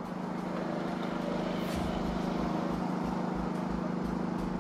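Idling fire engines' diesel engines making a steady, even drone.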